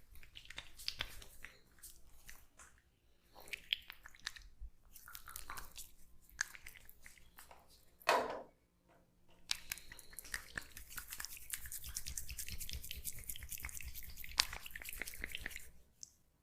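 Oiled hands rubbing and kneading the skin of the neck and shoulders close to the microphone, making wet, squishy crackling and clicking. The crackling gets dense through the second half, with one brief louder sound about halfway through.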